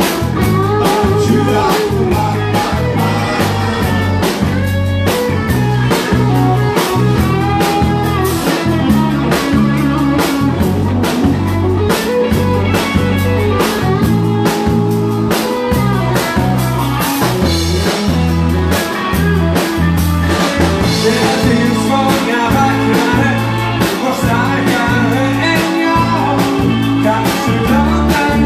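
Live band playing a honky-tonk blues number on electric keyboard, electric guitar and drum kit, with a steady beat.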